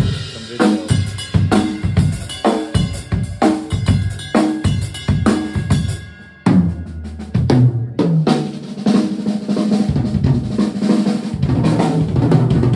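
A band playing a groove, led by a drum kit with kick, snare and hi-hat hits over bass and organ. The music dips briefly about six seconds in, then the drums come back in.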